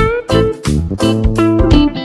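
Background music with plucked notes over a bass line and a steady beat.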